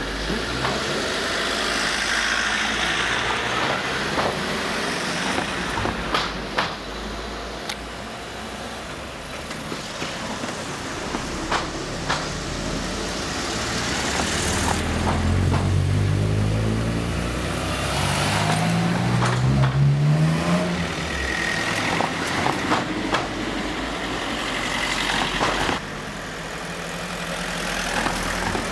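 Alfa Romeo cars driving past with their engines running, one engine climbing in pitch as it revs up about halfway through, with a few sharp clicks along the way.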